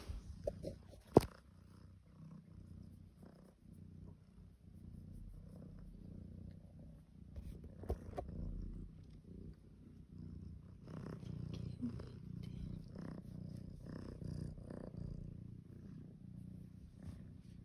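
Tabby cat purring, a low steady rumble. A few sharp clicks come in the first second or so, the loudest about a second in.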